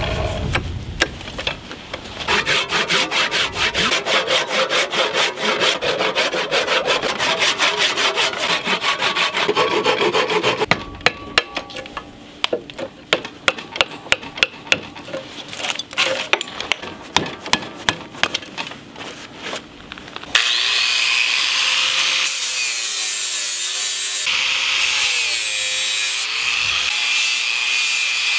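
Saw cutting into a zebrawood handle blank in rapid, even strokes. Then, for several seconds, irregular knocks as a chisel splits out the waste between the saw cuts. From about two-thirds of the way in, an angle grinder runs steadily with a flap disc against the wood, its whine wavering in pitch as the disc shapes the handle's curve.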